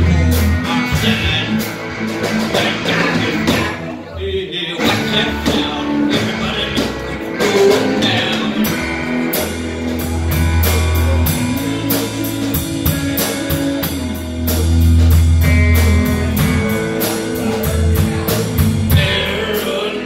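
Live rock band playing: electric guitars over a drum kit keeping a steady beat, with a low bass line underneath.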